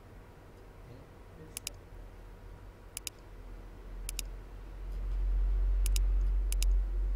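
Computer mouse clicks, each a quick pair of clicks, about six times, spread irregularly. A low rumble swells from about four seconds in and is the loudest sound.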